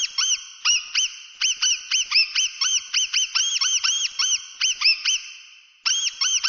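Mouse squeaking: a rapid run of short, high, rise-and-fall squeaks, about five a second, with a brief pause near the end before they start again.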